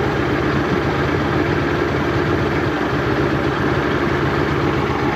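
Johnson/Evinrude outboard motor idling steadily.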